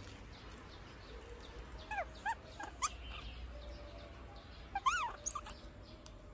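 Baby macaque giving short high calls that rise and fall in pitch: three quick ones about two seconds in, then another cluster about five seconds in.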